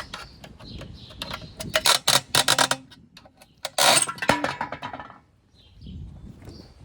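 A run of sharp clicks and knocks, loudest in two clusters about two and four seconds in, with a brief squeak just after four seconds.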